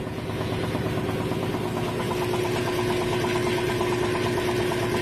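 Rebuilt Velvet Drive 71C marine transmission with a 1:1 ratio running in forward gear on a test stand: a steady mechanical hum with one held tone, joined about two seconds in by a fast, even ticking.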